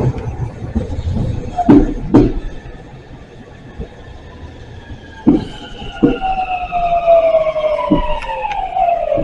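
Meitetsu 300-series electric train pulling into the platform and braking: scattered wheel knocks over the rails, and from about halfway through a whine from its traction motors that falls steadily in pitch as it slows.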